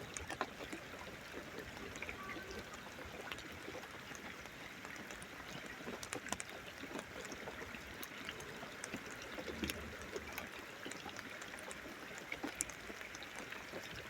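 Rain and dripping water: a steady hiss with scattered drops ticking.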